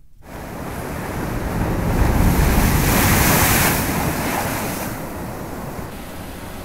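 Geyser crash sound effect: a loud rush of water that starts suddenly, swells for about two seconds, then eases into a steadier rushing.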